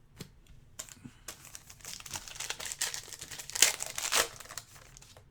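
Trading-card pack wrapper crinkling and tearing as it is opened and handled, in a run of rustles that starts about a second in and is loudest a little after the middle.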